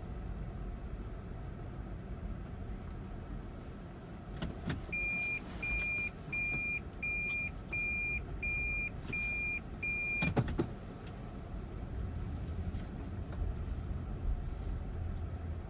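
Car driving slowly, steady low engine and road rumble inside the cabin. About five seconds in, an electronic beep sounds eight times, about two a second, followed by a sharp click.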